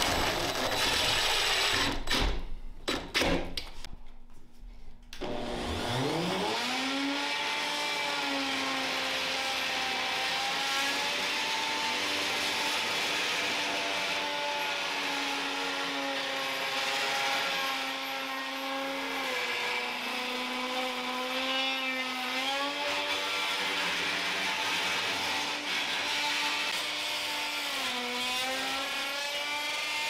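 A cordless drill runs in short bursts for the first few seconds. Then an electric router spins up with a rising whine about five seconds in and runs steadily as it planes the epoxy-and-wood surface of a door from a router sled. Its pitch dips briefly twice in the last third as the bit takes more load.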